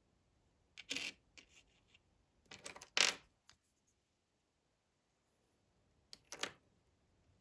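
Light clicks and clatter of small hard pieces being handled and set down, in three short clusters: about a second in, around three seconds in, and again near the end.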